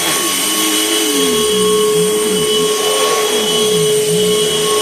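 2004 Panasonic upright vacuum cleaner running: a steady motor whine with a lower tone that wavers up and down over and over. The owner thinks it might need a new belt.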